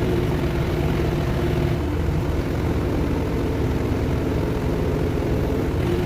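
A heavy engine running steadily at idle, with a constant low rumble and a steady hum.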